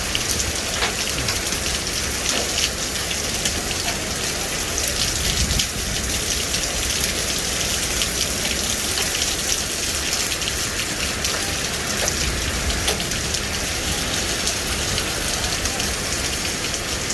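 Hail and heavy rain pelting down: a dense, steady hiss scattered with sharp ticks of individual hailstones striking.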